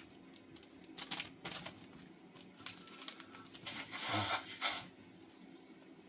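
A greeting card's shiny plastic packaging crinkling and rustling as the card is taken out of it: scattered light rustles, with a longer, louder rustle about four seconds in.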